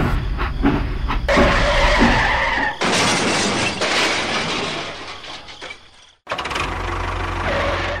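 Toy train derailment crash: a squeal about a second in, then a long shattering crash that fades and cuts off suddenly about six seconds in, followed by a steady rumbling noise.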